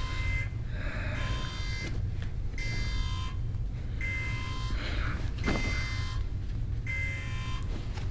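Spaceship emergency alarm buzzer sounding a repeating electronic tone, one beep about every second and a half, signalling a ship-wide emergency. A steady low rumble runs underneath.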